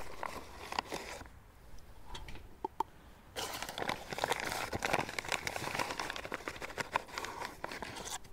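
Crinkling and rustling of a flour bag as self-raising flour is scooped out and measured by the cup, dense with small clicks and scrapes. It eases off for a couple of seconds about a second in, then picks up again.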